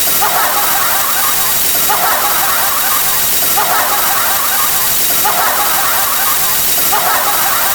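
A harsh, squealing sound effect played on a loop, repeating about every second and a half over a steady hiss.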